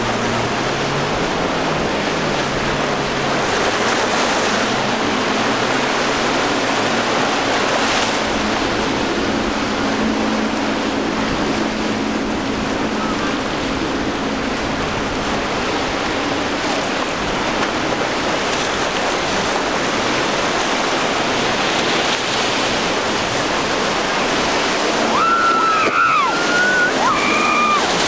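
Rough surf and wind rushing steadily, with a small boat's outboard motor running faintly underneath. A few high, sliding pitched calls come near the end.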